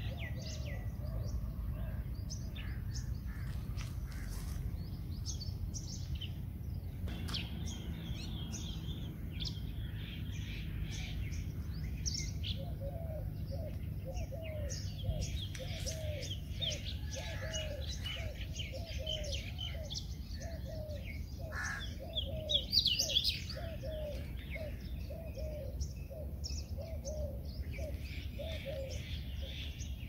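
Several small birds chirping and twittering, with a louder flurry about three quarters of the way through. Through the second half a dove coos low, its notes repeated about twice a second, over a steady low rumble of background noise.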